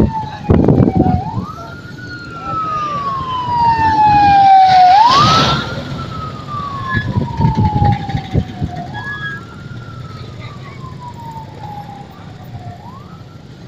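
Emergency vehicle siren on a wail cycle: each cycle rises quickly in pitch, then falls slowly, repeating about every four seconds. It is loudest about five seconds in, where a brief rush of noise joins it.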